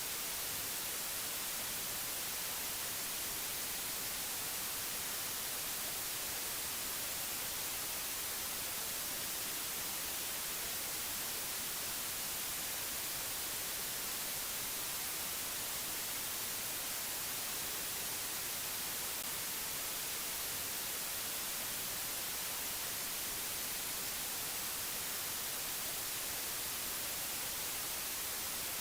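Steady white-noise hiss, even and unchanging, strongest in the high end, with nothing else heard.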